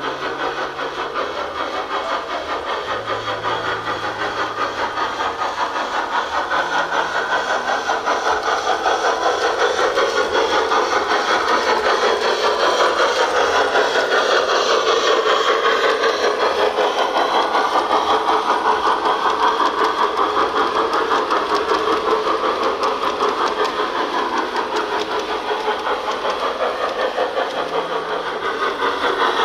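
LGB G-scale model train, an 0-8-0 Rügen steam locomotive with passenger cars, running along the track with a rapid, even rattle of wheels and motor. It grows louder over the first ten seconds or so as the cars pass close, and stays loud through the middle.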